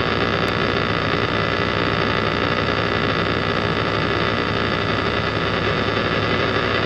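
Truck engine idling, a steady drone with a low hum heard inside the cab.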